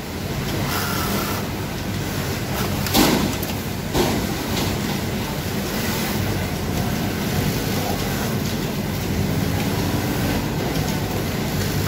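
Industrial sewing machines running on a garment factory floor: a steady mechanical drone with a low hum, broken by two sharp knocks about three and four seconds in.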